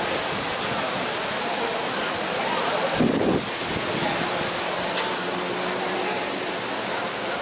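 Strong dust-storm wind blowing steadily, a loud rushing hiss, with a gust buffeting the microphone about three seconds in.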